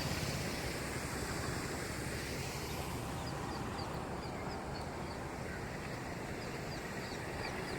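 Steady outdoor rushing noise, like wind or moving water. From about three seconds in, a run of short high chirps repeats several times a second.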